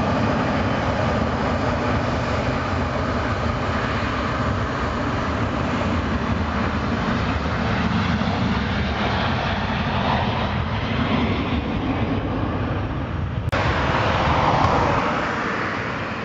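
Boeing 737-800's CFM56-7B jet engines running at taxi power as the airliner rolls along: a steady low rumble with engine whine. The sound changes abruptly about 13 seconds in, then grows fainter.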